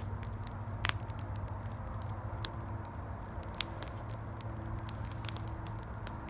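Campfire crackling, with irregular sharp pops and one louder pop a little past the middle. Underneath runs the steady low rumble of highway traffic.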